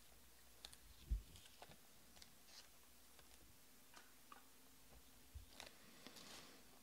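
Near silence with faint, scattered clicks and light handling noise from hands working with trading cards at a table, and a soft low thump about a second in.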